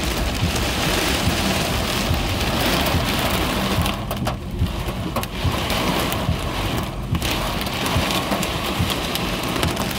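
Heavy storm rain pelting the roof and windshield of a car, heard from inside the cabin: a dense patter of drops over a low rumble. It thins briefly about four and seven seconds in.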